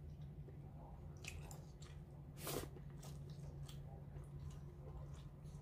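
A person chewing and biting boiled seafood: scattered wet smacks and crunches, the loudest about two and a half seconds in, over a steady low hum.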